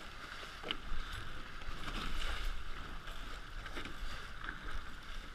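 Water rushing and splashing along the hulls of a Hobie 16 catamaran under sail through chop, with a few sharper wave slaps and wind rumbling on the microphone.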